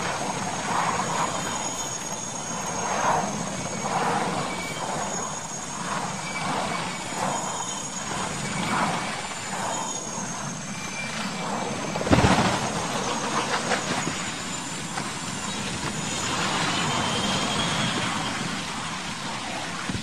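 Military transport helicopter's turbine engines and rotor running, pulsing irregularly. About twelve seconds in there is one sharp, loud impact as the helicopter crashes, and rumbling noise follows.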